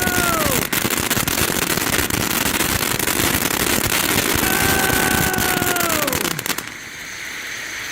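Ground fountain firework spraying with a dense crackling hiss, with two drawn-out whistling tones that hold and then drop in pitch; it cuts off about six and a half seconds in.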